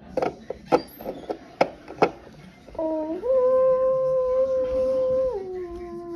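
A few sharp clicks of plastic toy figures being set on a wooden table, then a long howl voiced by a person in imitation of a wolf. The howl starts low, steps up and holds, then drops to a lower held pitch near the end.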